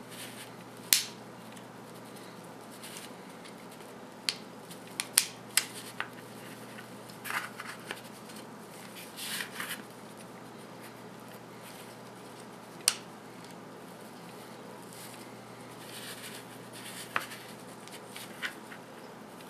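Plastic cover pieces of a MakerBot Smart Extruder being handled and snapped onto its housing: several sharp plastic clicks scattered through, the loudest about a second in, with soft rubbing and rustling of the parts between them.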